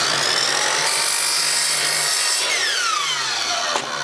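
Electric drill with a 5/8-inch paddle bit boring into wood. The motor whine rises as it spins up, then drops in pitch after the middle as the drill slows.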